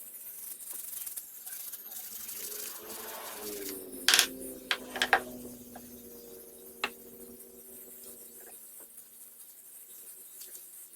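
A few sharp clicks: several about four to five seconds in and one more near seven seconds, over a faint steady hum.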